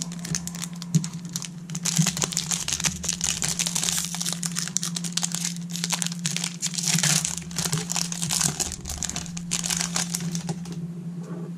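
Foil wrapper of a 2009 Upper Deck Signature Stars baseball card pack crinkling and tearing as it is pulled open by hand: a dense crackle that stops near the end.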